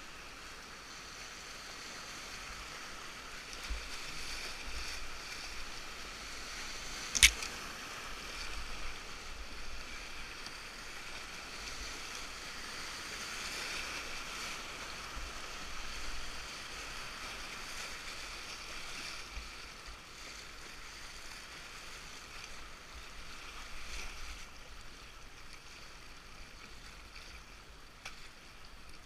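River water rushing past a canoe running riffles and small rapids. It is loudest through the whitewater in the middle and eases near the end. One sharp knock about seven seconds in is the loudest sound.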